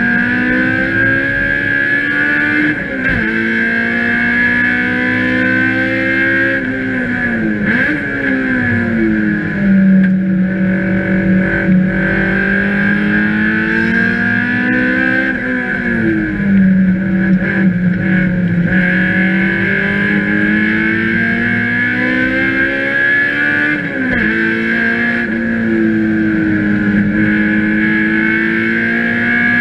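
Race car engine heard from inside the cockpit, pulling hard through the revs. The pitch climbs steadily and drops sharply at each upshift, with slower dips where the car slows for corners.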